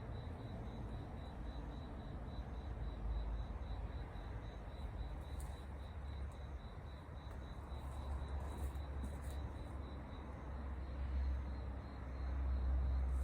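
An insect chirping in an even, rapid series, about three to four chirps a second, over a steady low rumble, with a few faint clicks here and there.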